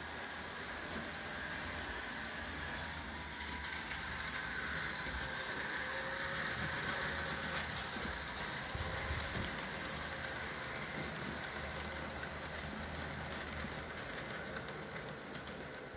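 Model railway electric locomotive, a BR 151, running with a long block train of freight wagons: a steady hum and faint whine from the motor with the rumble of the wheels on the track, a little louder in the middle.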